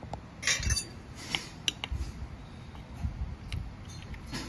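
A metal spoon and fork scraping and clinking inside an open tin can as food is scooped out. The loudest scrape comes about half a second in, followed by several short, sharp clinks.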